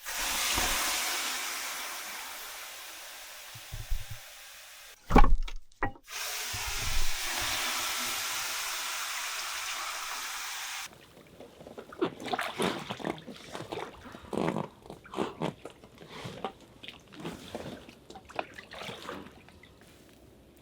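Rushing hiss of water that starts suddenly and slowly fades, broken by a few loud thumps around five seconds in. A second steady hiss then cuts off abruptly about eleven seconds in, followed by irregular patter and crackle.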